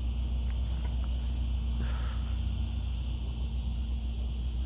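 A steady high-pitched insect chorus, crickets or cicadas, over a low steady rumble.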